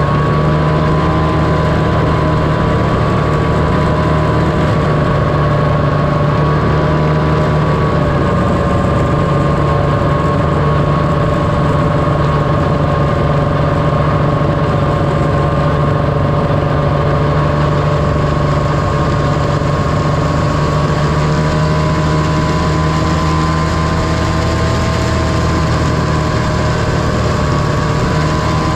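1978 John Deere Liquifire snowmobile's two-stroke engine running steadily under way at cruising speed, its pitch nearly even and rising a little near the end.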